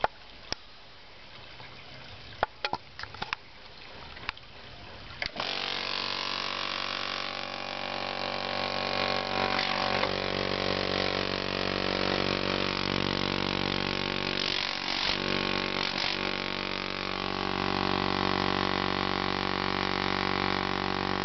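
A few sharp clicks, then about five seconds in a 2 hp electric air compressor motor and pump, running off its tank, starts and runs steadily with a dense, even hum, echoing in a shed.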